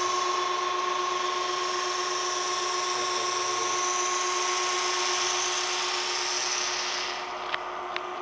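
A small machine running with a steady whine over a hiss. The hiss drops away about seven seconds in, and two sharp clicks follow near the end.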